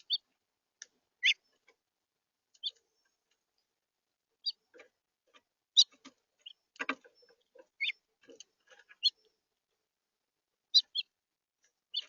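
House finches giving short, separate chirping calls, scattered a second or so apart, with a brief clatter about seven seconds in.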